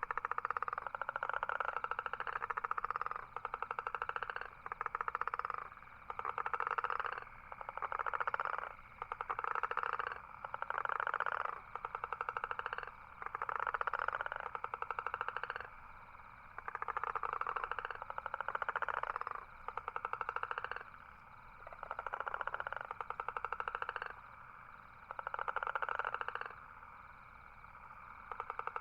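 Toad calling: a run of rapid pulsed trills, each about a second long, repeated every couple of seconds with short pauses between.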